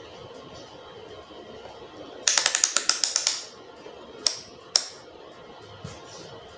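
The rotary range selector of a Suoer SD9205A digital multimeter being turned and clicking through its detents: a quick run of about a dozen clicks lasting about a second, then two single clicks.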